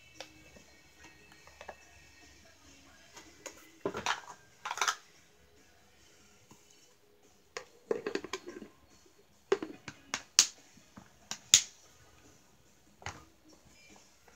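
Plastic knocks and clicks of a green mini rice cooker being handled and its lid closed, a scattered series of sharp clacks, the sharpest about eleven and a half seconds in.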